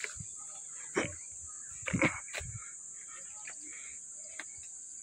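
Steady high-pitched chirring of insects, with a few thumps and rustles of footsteps among fallen branches and leaves about one and two seconds in.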